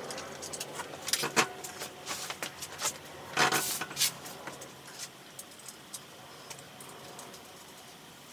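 Metal clinks, clicks and knocks of bolts and tools handled while fitting the engine's mounting hardware into the motorcycle frame, busiest in the first few seconds and thinning out after.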